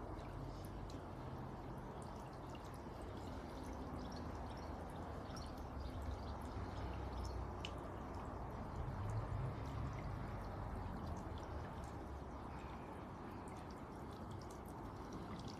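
Water from a small solar fountain splashing and dripping into a bird bath basin: a steady trickle with many small irregular drips.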